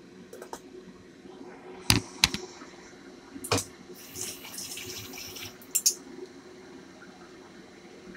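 Kitchen clatter of metal pots and a pot lid: a few sharp knocks and clinks, with a short hiss in the middle, over a steady low hum.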